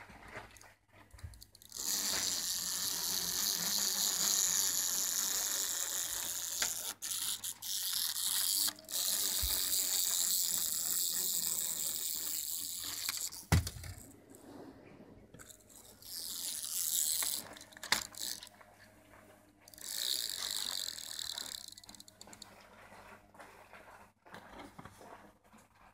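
Clockwork wind-up motor of a plastic 3D-puzzle toy car whirring as it unwinds, a long run of about eleven seconds ending with a low thump, then two shorter whirring runs.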